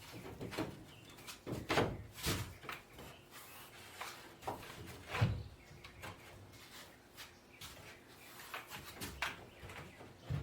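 Scattered faint knocks and clunks at irregular intervals, the loudest about two seconds and five seconds in.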